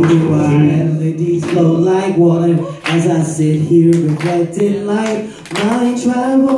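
A cappella hip-hop group singing long held notes together, with sharp vocal beats cutting in every second or so, amplified through the room's PA.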